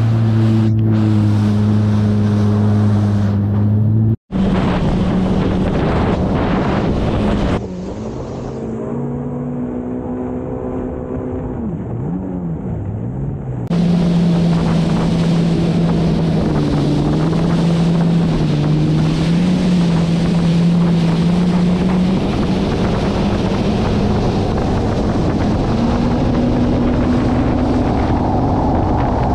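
Jet ski engine running at speed, its pitch rising and falling with the throttle, over wind buffeting the microphone and the rush of water and spray. The sound breaks and changes abruptly a few times, about 4, 7 and 14 seconds in.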